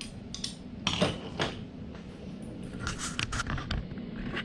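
Scattered clicks, knocks and rustles of parts being handled, in small clusters about a second in and again around three seconds in, over a low steady hum.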